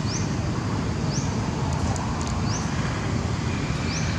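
Steady low outdoor rumble, like wind or distant traffic, with a short high rising chirp repeating about once every second or so.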